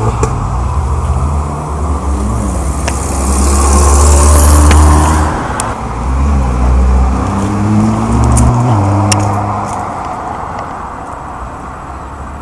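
Nissan GT-R's twin-turbo V6 accelerating hard past at close range: the engine note climbs, drops back sharply about halfway, climbs again, then fades as the car pulls away.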